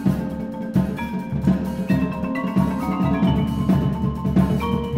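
A percussion ensemble playing: marimba and other mallet keyboards sound quick, dense notes over drum strokes, with no break.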